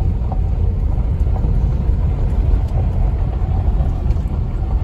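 A car driving slowly over a packed, tar-bound gravel road, heard from inside the cabin: a steady low rumble of tyres and engine, with a few faint ticks scattered through it.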